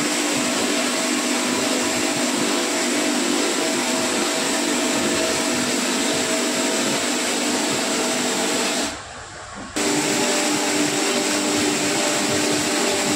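Tyre-retreading buffing machine running steadily as it spins a large tyre casing: an even hum made of several held tones under a strong hiss. The sound drops out for under a second about nine seconds in.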